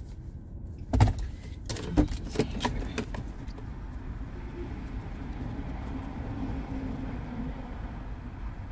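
A car door thuds and clicks as the driver climbs out, with two sharp knocks about a second apart and a few lighter clicks. A steady low rumble follows, heard from inside the parked SUV.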